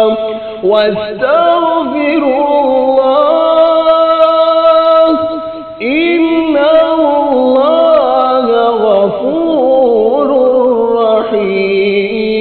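A male reciter chanting the Quran in melodic tajwid style, with long drawn-out, ornamented notes. He chants 'huwa khayran wa a'zama ajran', takes a short breath about five seconds in, then chants 'wastaghfiru Allah'.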